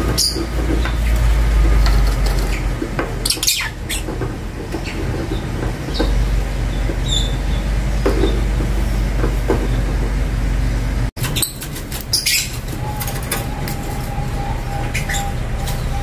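A few short, sharp lovebird chirps over a steady low rumble, which is the loudest sound. The rumble cuts off abruptly about two-thirds of the way through.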